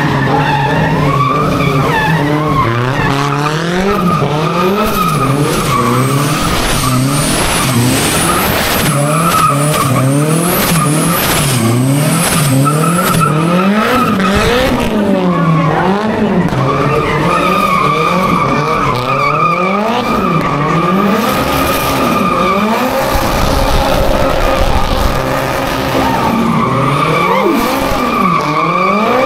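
A drifting car's engine revving up and down about once a second, over a steady high tire squeal that is strongest in the second half.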